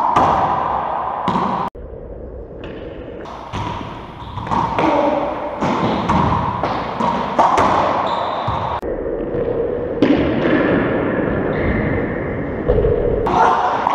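Racquetball rally in an enclosed court: the hollow rubber ball smacking off strings and walls in sharp, irregular hits, each echoing in the court.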